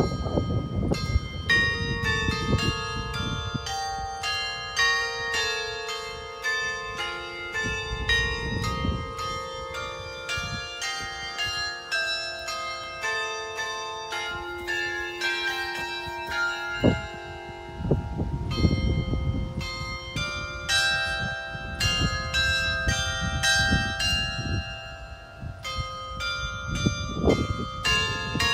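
Church carillon playing a melody: many tuned bells struck in quick succession, their notes ringing on and overlapping.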